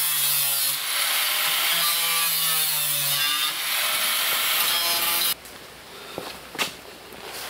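Angle grinder with a cut-off wheel cutting through the sheet-steel rear fender of a 1964 Chevy II Nova to radius the wheel well, a loud whine and hiss. It stops suddenly about five seconds in, and a few light knocks follow.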